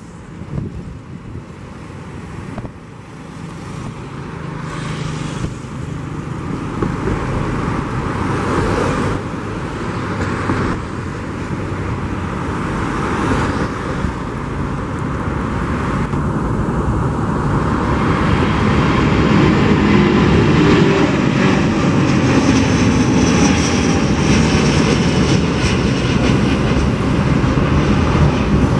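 Airbus A330-900neo's Rolls-Royce Trent 7000 turbofans at takeoff thrust, growing steadily louder as the airliner rolls down the runway and climbs out. A whine rises high up in the second half.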